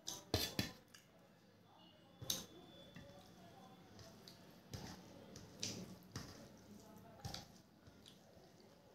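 Thin moong dal poured from a steel bowl onto rice, with a couple of sharp clicks near the start, then a hand mixing the wet rice and dal on a steel plate, making soft squishing and dripping sounds.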